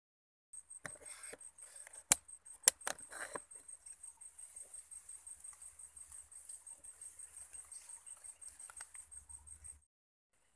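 A high-pitched insect trill, rapidly pulsing and steady, cutting off near the end. Two sharp clicks about half a second apart come a little after two seconds in.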